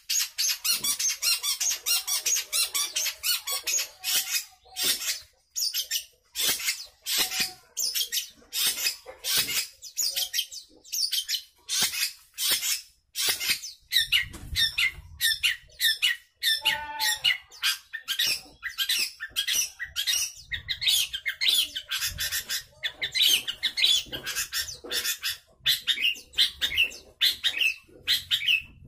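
Caged long-tailed shrike (cendet) calling with short, sharp notes repeated several times a second, nearly without pause: the monotonous 'toet-toet' calling, which the keeper puts down to the breeding season or to poor care.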